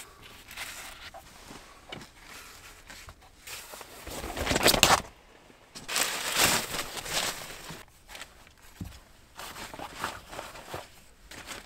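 Rustling and crinkling of a silver foil reflective car sunshade as it is handled, unfolded and fitted to the windscreen. The sound comes in several noisy spells and is loudest about five seconds in.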